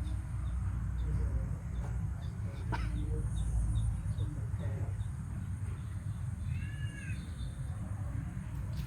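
Outdoor ambience: a steady low rumble, with a single sharp click about three seconds in and a brief arched bird call about seven seconds in.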